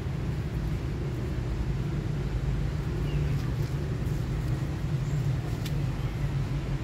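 A steady low engine hum running without change.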